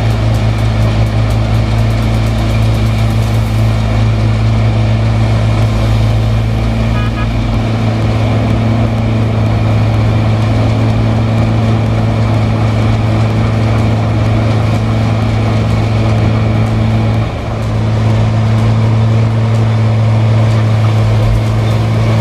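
Heavy diesel engine of a sugarcane harvester working beside a cane haul truck, running steadily at a constant pitch. The sound dips briefly about three-quarters of the way through.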